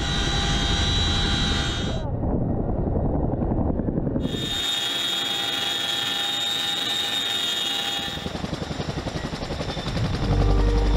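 Boeing CH-47 Chinook tandem-rotor helicopter hovering low: steady rotor and engine noise with a high, steady whine. The sound changes abruptly several times, the whine dropping out and coming back.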